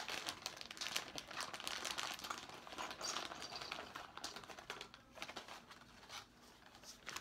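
A plastic bag crinkling as it is handled and opened, the crackling thinning out after about five seconds.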